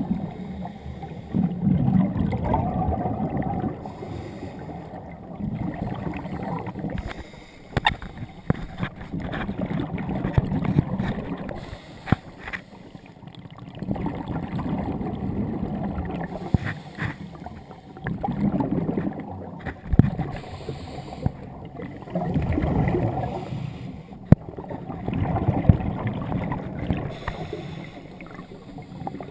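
Scuba diver's exhaled bubbles from the regulator, heard underwater as low bubbling swells every three to four seconds, with a few sharp clicks between them.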